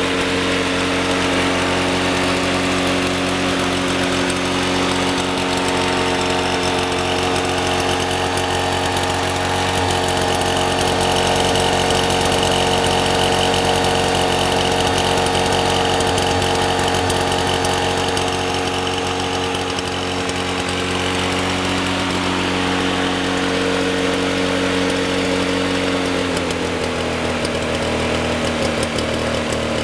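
1987 Toro GTS 120 lawn mower's Suzuki two-stroke engine running steadily at an even speed; about 26 seconds in it drops to a slightly lower speed and keeps running.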